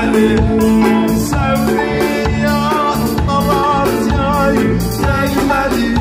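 Loud Turkish folk dance music for a halay line dance: a singing voice or wavering melody line over a steady beat.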